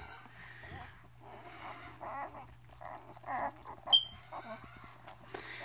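Newborn puppies whimpering and squealing in many short, wavering cries while they nurse. A single sharp click about four seconds in.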